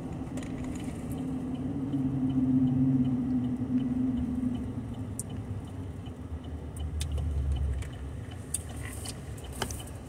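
Low hum of a car heard from inside the cabin, swelling louder a couple of seconds in and giving way to a deeper rumble near the end, with a few faint clicks.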